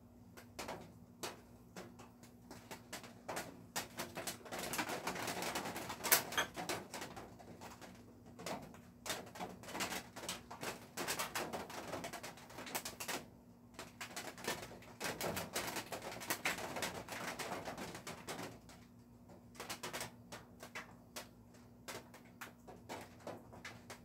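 Rain hitting a roof: irregular drips and ticks that thicken into heavier patter for a few seconds at a time, over a faint steady hum.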